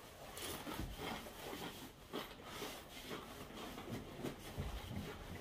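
Faint, irregular crunching of a Paqui One Chip Challenge tortilla chip being bitten and chewed, a run of small crackles and ticks.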